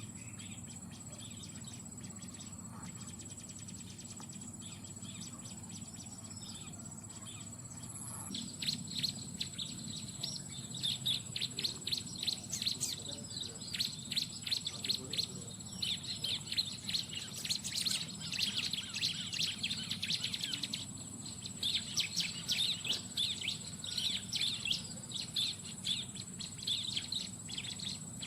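Bar-winged prinias (ciblek) calling in fast, high, twittering chirps that start about eight seconds in and come in clusters, over a steady high insect drone.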